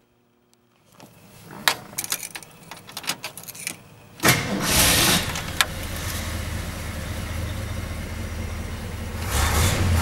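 The 1966 Ford F100 pickup's engine is started. First come a few sharp clicks and rattles at the controls. About four seconds in, the engine cranks and catches, then runs steadily at idle. Near the end it revs up.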